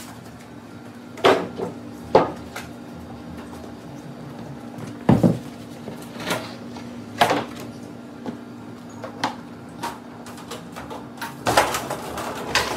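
Irregular knocks and metal clanks from a hand pallet jack carrying a heavy commercial floor mixer as it is rolled and steered over plywood sheets and floor mats, one heavier thud about five seconds in and a quick cluster of knocks near the end. A steady low hum runs underneath.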